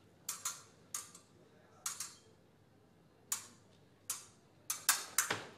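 Fencing sabre blades striking and clinking against each other in a fast exchange: about ten sharp metallic clicks with short ringing tails, coming irregularly and several in quick pairs.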